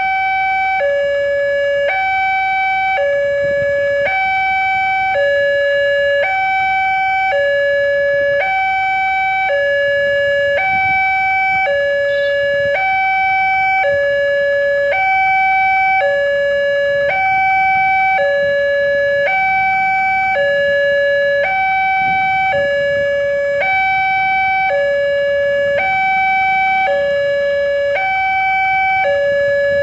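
Railway level-crossing alarm sounding from the crossing's horn loudspeaker: a steady two-tone warning that switches between a lower and a higher tone about once a second. It signals that a train is approaching and the barrier is down.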